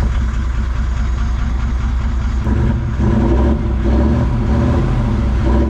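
A motor vehicle engine running loudly and steadily, a little louder from about three seconds in, then dropping away at the very end.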